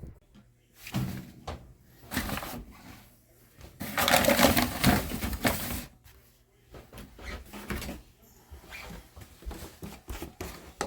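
Handling noises: a few bursts of rustling, the longest and loudest about four seconds in, then a run of small clicks and taps.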